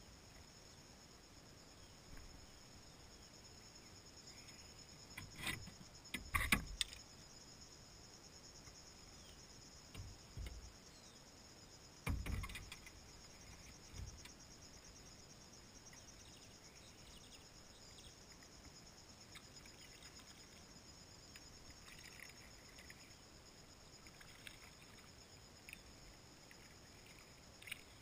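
Steady high-pitched insect buzzing, with a few paddle strokes splashing and the paddle knocking against the canoe, loudest around a quarter of the way in and again near the middle.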